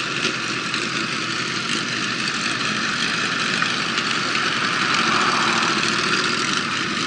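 Motorcycle engine running at low revs as the bike slows to a crawl, heard from an onboard camera, with a steady hiss over the engine.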